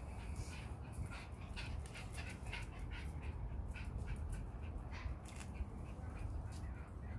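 Two schipperkes playing and scampering on patio tiles, a run of short clicks and scuffs throughout.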